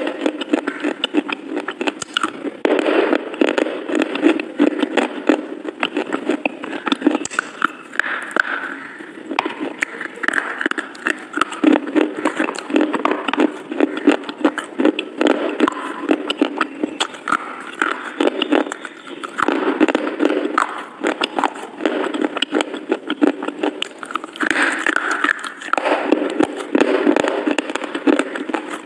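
Close-up chewing: a person biting and chewing food near the microphone, with a steady run of small crunching, crackling and wet mouth clicks.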